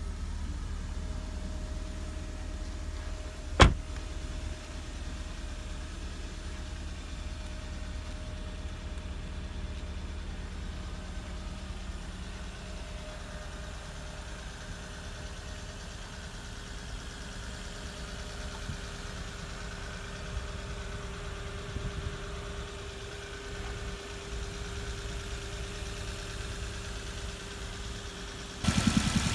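Suzuki Swift's 1.2-litre K12B four-cylinder petrol engine idling steadily, with one sharp loud thud about four seconds in, a car door shutting. Near the end the engine sound suddenly grows louder.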